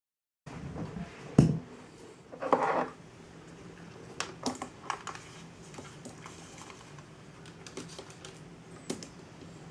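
Scattered light clicks and taps, with one knock about a second in and a short rush of noise halfway through the first three seconds, over a faint steady hum: handling noise around a handheld radio scanner and tablet.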